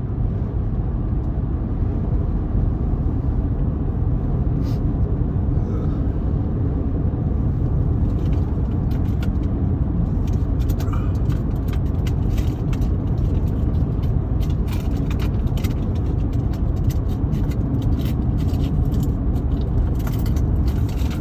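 Steady low road and engine rumble inside a moving car, with scattered faint clicks from about eight seconds in.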